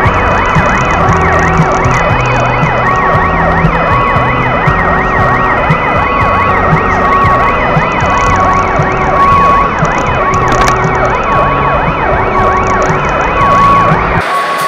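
Several electronic sirens wailing and yelping at once over music with a steady bass line, with a short high beep repeating about once a second.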